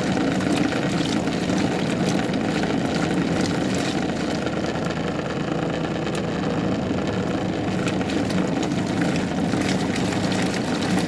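Good Ideas twin-tub washing machine's wash tub running on its normal setting: the motor hums steadily while the washer churns clothes through the water, with a constant sloshing. The agitation on normal is a bit rough.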